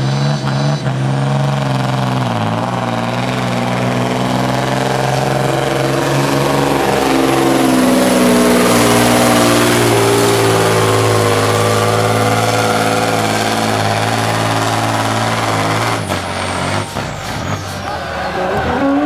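Diesel engine of a truck-pulling truck running hard under load as it drags the weight-transfer sled, its pitch slowly rising and falling, with an abrupt change in the sound near the end.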